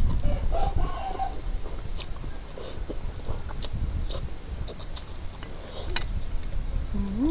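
Eating sounds: utensils clicking against a bowl, with chewing. A chicken clucks about half a second to a second in.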